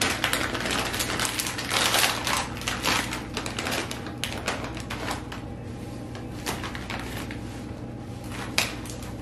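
A crinkly plastic bag of corn chips being opened and rummaged in. It makes dense crackling for the first three seconds or so, then sparser rustles, with a sharp click near the end.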